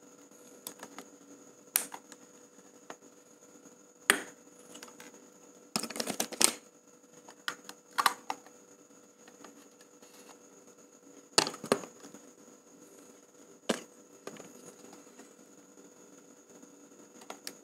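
Scattered plastic clicks and taps of a Canon EOS 650D DSLR body and its flip-out screen being handled, about a dozen sharp ones with small clusters about six and twelve seconds in. A faint steady high tone runs underneath.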